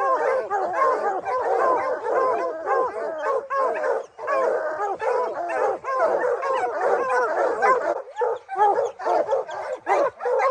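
A pack of bear hounds baying treed at the foot of a tree with a black bear up in it: many dogs barking and bawling at once, overlapping without a break. Treed baying is the pack's signal that the bear is up the tree.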